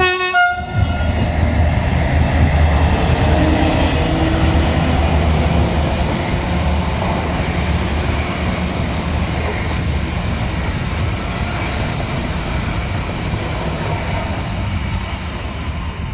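Renfe class 334 diesel locomotive and its Talgo VI coaches passing through the station at speed without stopping: a steady heavy rumble of the train running over the rails, loudest a few seconds in and easing as the last coaches go by. There is a brief pitched sound at the very start and a thin wheel squeal about four seconds in.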